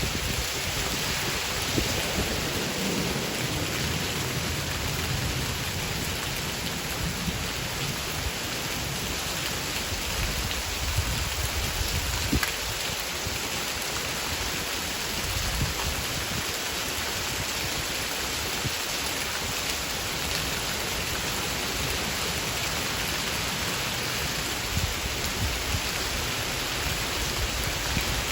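Steady rain shower falling, an even hiss of drops with scattered sharper ticks of individual drops.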